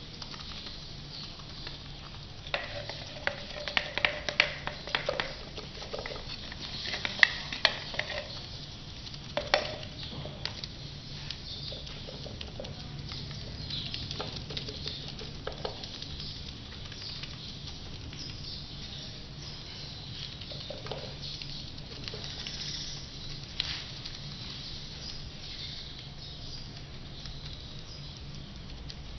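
Paintbrushes dabbing and working resin into wet fibreglass mat: soft wet patting and scraping, with a cluster of sharper taps in the first ten seconds, over a low steady hum.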